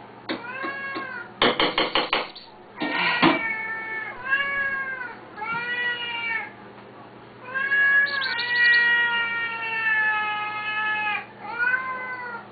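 Siamese cats meowing loudly and repeatedly, begging for food at feeding time: a string of rising-and-falling meows, one drawn out for about three seconds in the second half. A quick run of knocks comes about a second and a half in.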